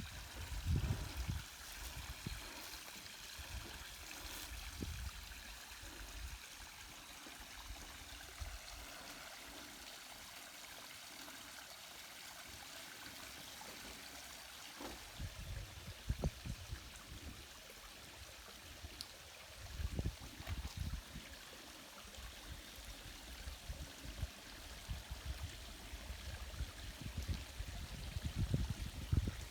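Mountain stream water running steadily over rocks, a continuous hiss, with occasional low rumbling thumps near the start, in the middle and near the end.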